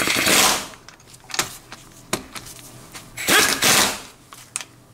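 Pneumatic impact wrench (air gun) hammering in short bursts, one at the start and two close together near the end, running threadlocker-coated bolts tight into a manual gearbox's cover.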